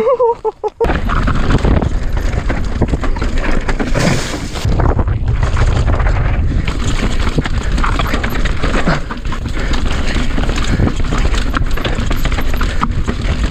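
Enduro mountain bike (Polygon Siskiu N9) riding fast down a dry dirt trail: tyres crunching over dirt and stones, the bike rattling and knocking over bumps, and wind buffeting the microphone. The noise breaks off briefly about half a second in, then runs on.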